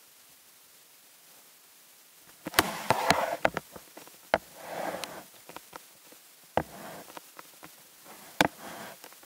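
A series of sharp knocks and short rustling, scuffing noises close to the floor-level camera's microphone. They begin about two and a half seconds in, are densest just after, then come every second or two.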